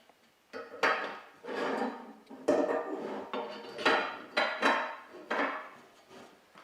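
Metal frame parts of a baker's rack clanking and rattling against each other as a crossbar is fitted to a side piece: a series of sharp metallic knocks with short ringing.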